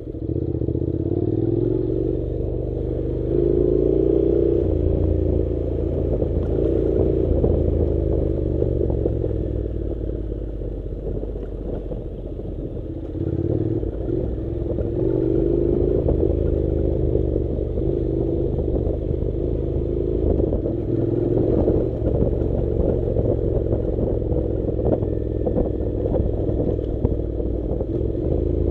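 Honda NC700 motorcycle's parallel-twin engine running as it rides along a gravel dirt track, its note rising and falling several times with the throttle, with stones and the bike clattering underneath.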